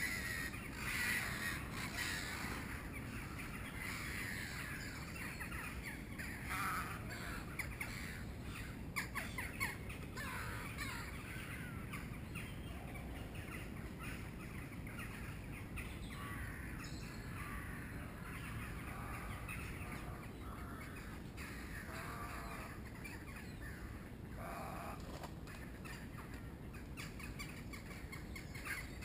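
Many harsh bird calls, short croaks and caws scattered throughout, over a steady low background rumble.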